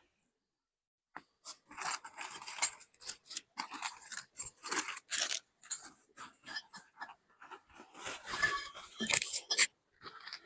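The zipper of a fabric carry bag is pulled open, then folded nylon fabric is dragged out, with crinkling and rustling in a quick run of short, scratchy strokes. It starts about a second in and stops just before the end.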